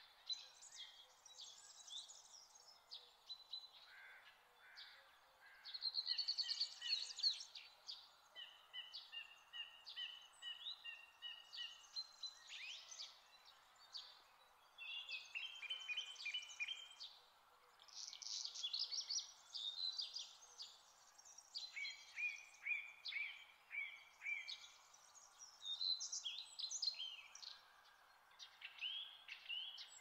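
Songbirds singing in a forest: a busy chorus of varied chirping and warbling phrases, some overlapping, with runs of quick repeated notes, over a faint steady background hiss.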